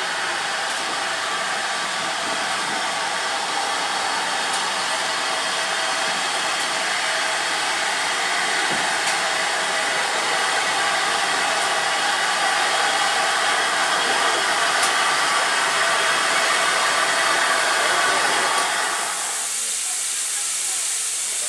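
Railway carriages rolling past close by behind a steam locomotive: a steady rushing rumble of wheels on rail that slowly grows louder. About nineteen seconds in it cuts to the high, steady hiss of steam from a standing GWR 5700-class pannier tank locomotive.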